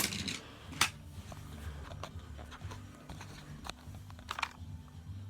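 A few faint clicks and knocks of plastic Hot Wheels track being handled, over a low steady hum.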